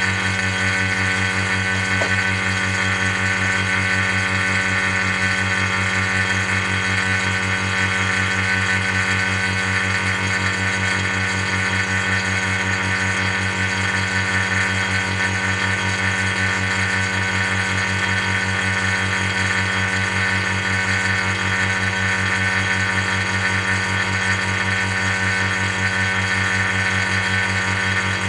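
Steady electrical hum and motor whir from a vacuum glow-discharge apparatus, its vacuum pump and high-voltage supply running while the gas between the ring electrodes glows.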